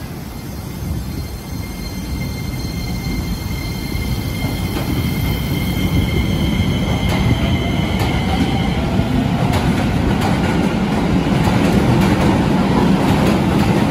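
Keisei 3000-series electric train pulling out and gathering speed, growing louder throughout. Its inverter-driven traction motors whine in steady high tones at first, then in a tone that rises in pitch about eight seconds in. Wheels knock over rail joints in the second half.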